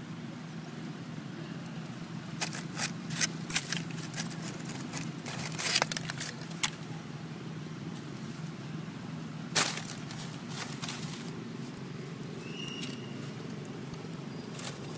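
Dry leaves crackling and snapping in a run of sharp clicks through the first half, with one more about two-thirds through, over a steady low hum. A brief high chirp sounds near the end.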